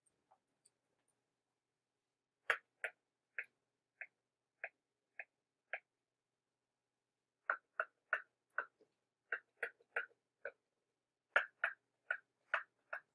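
Short, sharp clicks in three irregular runs, one to three a second, with short gaps between the runs.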